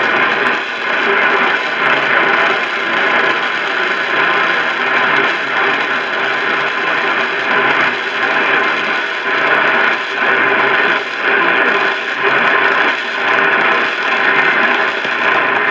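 Radio receiver playing a weak, static-filled broadcast: a loud, continuous hiss of static that swells and dips about once a second, with no clear words coming through.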